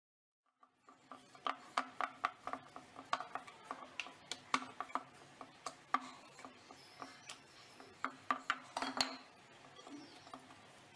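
Wooden rolling pin rolling chapati dough on a wooden board, with irregular knocks and clatter of the pin on the board, about two or three a second. It starts about a second in and gets sparser near the end.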